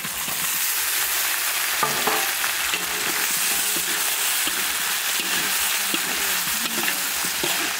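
Whole prawns hitting a hot oiled wok with fried garlic and sizzling loudly, starting suddenly as they go in. A metal ladle scrapes and clinks against the steel wok as they are stirred.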